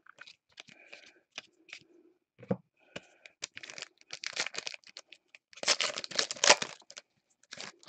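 Trading-card pack wrapper crinkling and tearing as packs are opened and cards handled, with small clicks throughout. The loudest crinkling comes about six seconds in.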